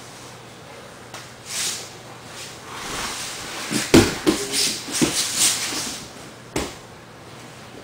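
Two grapplers scrambling on a padded mat: bodies and clothing rubbing and sliding, with several thumps on the mat, the loudest about four seconds in and a sharp one near the end.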